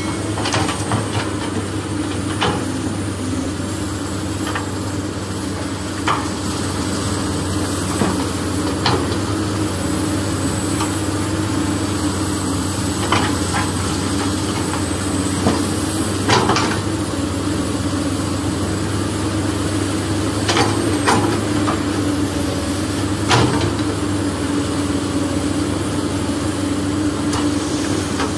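A steady engine-like drone, like heavy machinery running, with scattered short clicks and knocks as the toy excavator works the soil and loads it into the toy dump truck.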